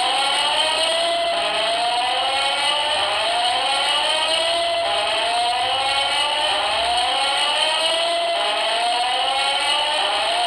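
Building alarm sounding during a scheduled test: a loud siren tone that rises in pitch over about a second, then drops back and rises again, over and over.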